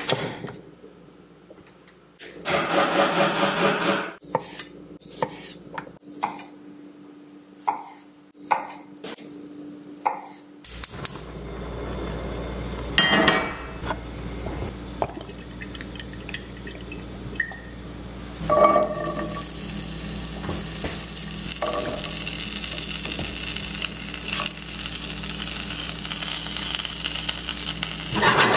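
Small potatoes tipped from a glass bowl onto a wooden cutting board with a brief rattle, then a knife chopping them on the board, about a stroke a second. About ten seconds in, a steady low hum starts; the potato pieces clatter into a black steel skillet and begin sizzling, the sizzle building in the second half.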